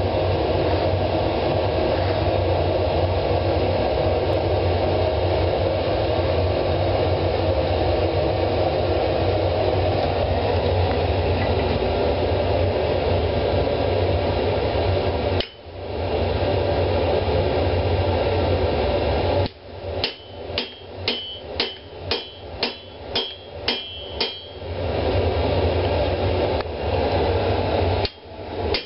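Forge running with a steady rushing noise, then a hammer striking red-hot steel on the anvil: about a dozen quick blows, a little under three a second, each with a bright metallic ring, and a few more near the end, with the forge's rush heard between the runs.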